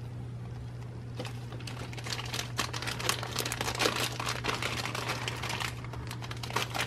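Thin clear plastic bag crinkling as hands push a foam squishy toy duck back into it: a dense run of quick small crackles starting about a second in.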